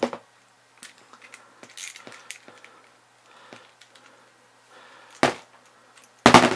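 Small metal tool and hotend parts being handled while a small socket unscrews the brass nozzle from the heat block: faint scattered clicks and scrapes with a few sharp knocks, the loudest near the end.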